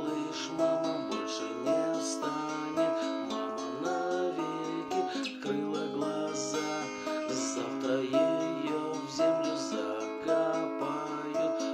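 Acoustic guitar strumming a steady chord pattern as an instrumental passage between sung verses.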